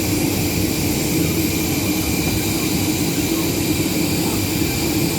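Jet aircraft engines running with a steady, unchanging drone and high whine.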